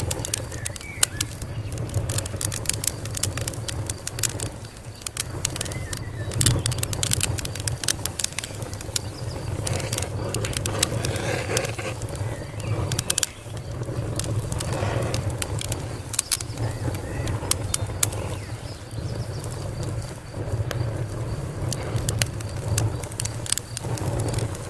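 Wood fire crackling, with irregular sharp pops and snaps over a steady low rumble of burning.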